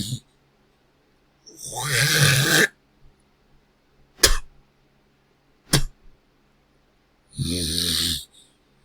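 A person snorts, hawks up phlegm with a rasping throat-clear that grows louder over about a second, then spits twice with short sharp 'ptoo' sounds. Near the end comes another loud nasal snort.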